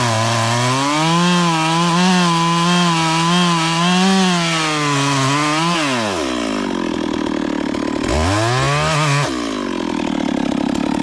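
Two-stroke chainsaw running at full throttle while cutting wood, its pitch wavering under load. About six seconds in, the throttle is released and the pitch drops to idle. It revs briefly once more and settles back to a fast, pulsing idle.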